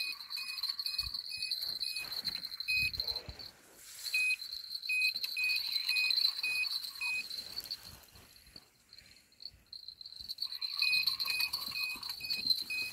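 Night insects calling: a steady high trill with runs of short, evenly repeated chirps at a slightly lower pitch, and a few low handling thumps from the fishing rod near the start.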